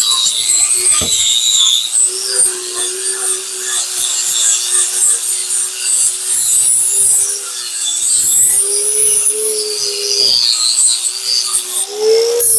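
Angle grinder with a flap wheel running against a steel truck frame, scouring off rubberized undercoating. Its steady motor whine wavers slightly under the work and climbs in pitch near the end, over a harsh abrasive scraping.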